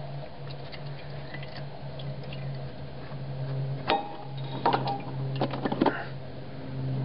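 Oil filter being unscrewed by hand under a Honda Pacific Coast motorcycle, with used oil trickling and dripping from it. A few sharp clicks and knocks come between about four and six seconds in as the filter is handled, over a steady low hum.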